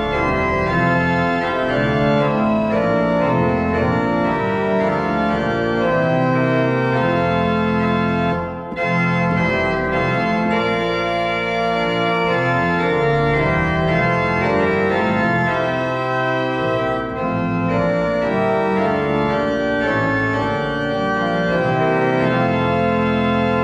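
Organ music: full sustained chords held at a steady level, with a short break between phrases about nine seconds in.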